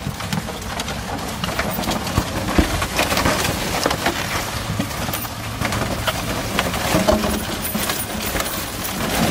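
Balloons rustling and bumping as they are handled and pushed into a car, with many small crinkling clicks over a low steady hum.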